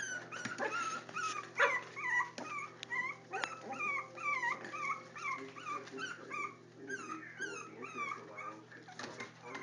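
Four-week-old Jack Russell terrier puppies whining in short, high calls that bend in pitch, about two a second, as they tumble over one another.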